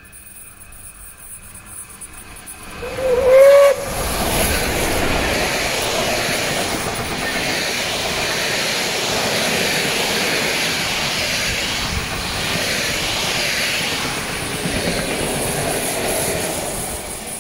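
Class 012 steam locomotive 012 104-6 approaching with a special train gives one short whistle blast about three seconds in, the loudest moment. Its long train of passenger coaches then rolls past close by with a steady noise of wheels on rails.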